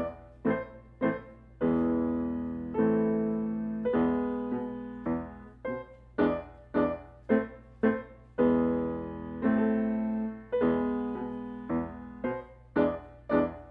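Piano playing a simple piece: short detached notes about two a second, alternating with held chords that ring and fade.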